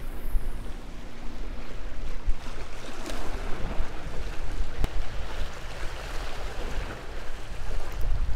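Wind buffeting the microphone over choppy sea water washing against jetty rocks.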